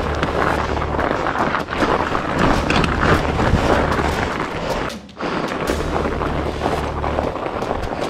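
Fat bike riding over snow: continuous tyre and frame noise with wind rumbling on the microphone, dropping out briefly about five seconds in.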